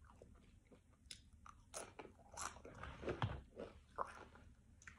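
A person chewing nacho cheese Doritos tortilla chips: a run of irregular, crisp crunches.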